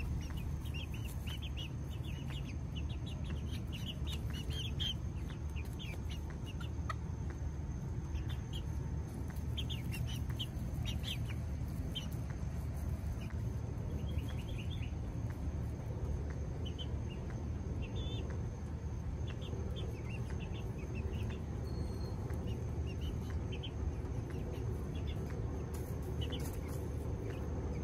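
Young chickens, a few weeks old, peeping and softly clucking in short, high calls scattered throughout, over a steady low hum.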